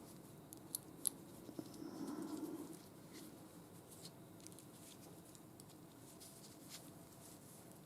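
A few faint, sharp clicks of small metal lathe parts being handled, about a second in, with soft handling noise over quiet room tone.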